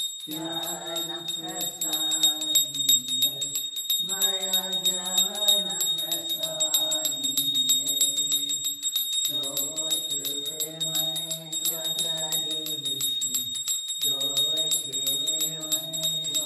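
Devotional song sung in phrases a few seconds long with short breaths between, over a hand bell rung rapidly and without pause, its high ringing steady throughout.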